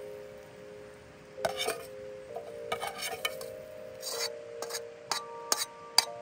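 Metal utensils scraping and clinking against a camp cooking pot as food is lifted out and set onto a wooden cutting board. A series of short scrapes and clicks, the sharpest clink near the end. Soft background music with held chords plays underneath.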